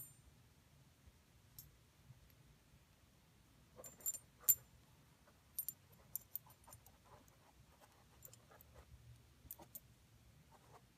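Sparse faint clicks and light taps from small metal AR-15 rifle parts being handled, with a pair of louder clicks about four seconds in.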